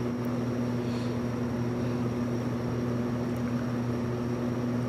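A steady low hum with a faint thin high whine above it, unchanging, with nothing else happening.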